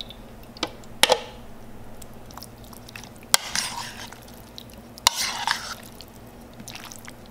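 A metal spoon in a plastic mixing bowl, folding chunks of marinated fish together with chopped pineapple, cucumber and avocado. There are four sharp taps of the spoon against the bowl, and the later two are each followed by a short wet, squishy stirring sound.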